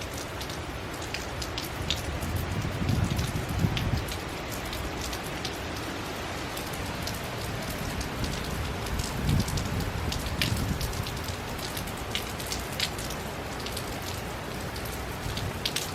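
Steady hurricane rain falling, with many individual drops ticking sharply close by. A low rumble swells about three seconds in and again around ten seconds.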